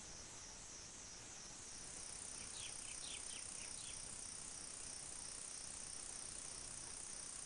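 Insect chorus, typical of crickets: a steady high-pitched trilling that pulses evenly. A second steady high note joins about two seconds in, and a quick run of faint chirps comes near the middle.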